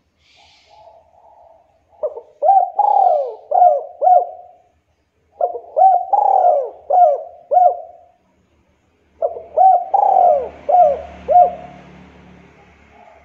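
Local Javanese spotted dove (derkuku) cooing: after a soft, quiet coo near the start, it gives three loud phrases a few seconds apart, each a quick run of about five rising-and-falling coos.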